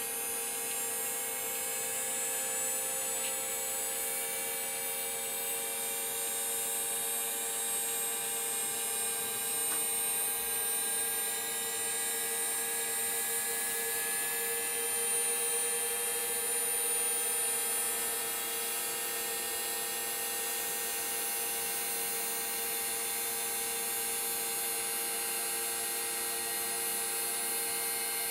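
Boeing 737 vertical gyroscope (model 314) rotor spinning up under power. Its whine is made of several tones that rise slowly in pitch, the highest the loudest, over a steady hum.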